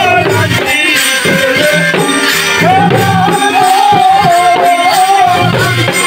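Loud Bangladeshi folk dance music (baidar gan) with singing over rattling percussion. A wavering melody line is held for a few seconds around the middle.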